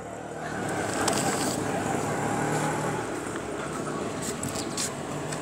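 Steady street background noise with traffic running in the distance and faint voices.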